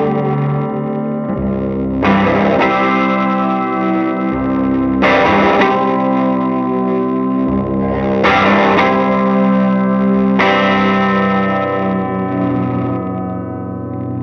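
Distorted electric guitar played through a small tube amplifier and effects pedals: chords struck about four times, each left to ring out with long sustain, in a shoegaze style.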